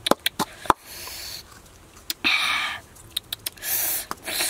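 Pestle pounding chilies and garlic in a small round mortar bowl: a quick run of sharp knocks in the first second, and more knocks about three seconds in. Two short rustling hisses follow, one about two seconds in and one near the end, the last as salt is tipped into the bowl.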